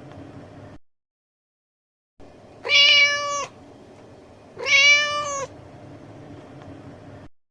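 Domestic cat meowing twice, about two seconds apart, each meow under a second long and fairly steady in pitch. A faint background hiss runs between the meows and cuts to dead silence for over a second near the start and again at the very end.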